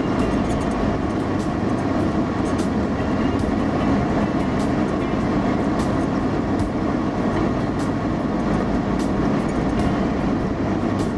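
Steady drone of a 4WD's engine and tyres driving along soft beach sand, with faint light clicks and rattles scattered through it.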